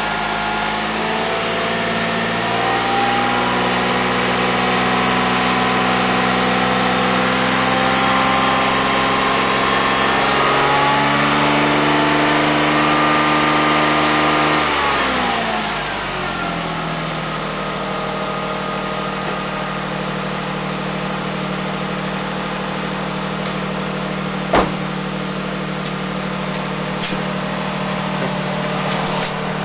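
2000 Lexus RX 300's 3.0-litre V6 running through a Delta dual exhaust with the OEM resonator: revs held up and stepped higher several times, then falling back about halfway through to a steady idle. A single sharp click about two thirds of the way in.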